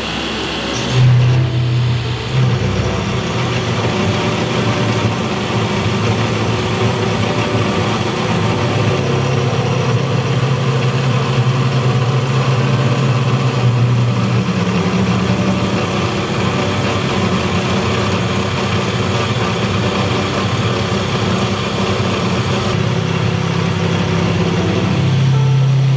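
Large CNC lathe turning a big metal workpiece under coolant spray: a steady low machine hum with noisy cutting and spray sound above it, the hum stepping up and down a little a few times.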